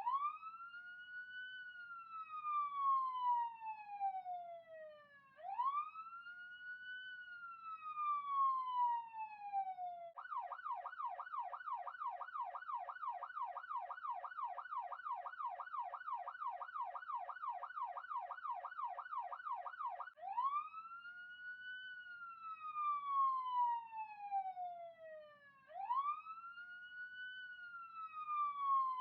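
Police siren sound effect: a slow wail that rises quickly and falls away slowly, about every five seconds. About ten seconds in it switches to a fast yelp of about three rises a second, and about ten seconds later it goes back to the slow wail.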